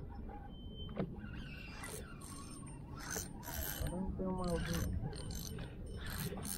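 Fishing reel being wound in against a hooked fish: mechanical clicking and whirring in irregular spells, heaviest in the middle and near the end. A short voice sound breaks in about four seconds in.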